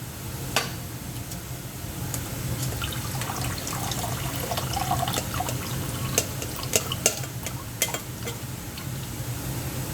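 Water running or being poured into a pot, with a few sharp clinks of a pot or utensils over a steady low hum.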